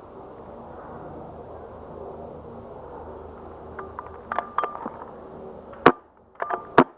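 Empire Sniper pump-action paintball marker: clusters of short clicks and clacks from about four seconds in, then two loud sharp shots, one just before six seconds in and one just before the end. The pattern fits a pump cycle followed by a shot, twice.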